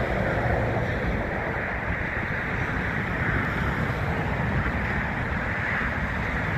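Steady rush of airliner jet engines as aircraft taxi, mixed with wind on the microphone.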